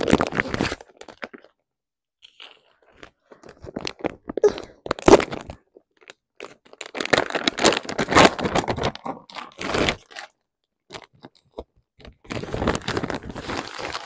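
Packaging rustling and crinkling in several bursts as a gift box is unpacked by hand, with crunching and tearing sounds, the longest spell in the middle.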